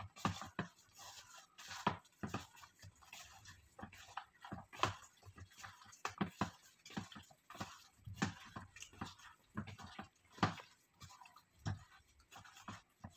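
Gloved hand squeezing and turning seasoned raw chicken pieces in a bowl, a run of irregular short squishing sounds.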